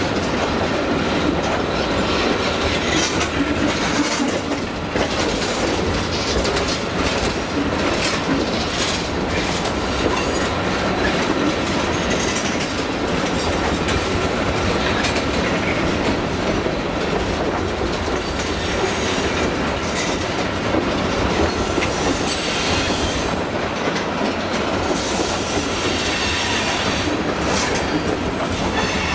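Freight train of tank cars rolling past close by: steady rumble and clatter of steel wheels over the rail, with a thin, steady wheel squeal running through it.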